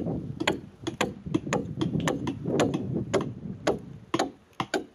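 Short-handled hand tool chopping into the end of a wooden plank: sharp wooden knocks in a steady rhythm, about three a second.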